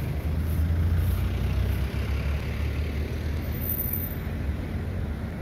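Diesel engine of a Hitachi EX130 amphibious excavator running with a steady low drone.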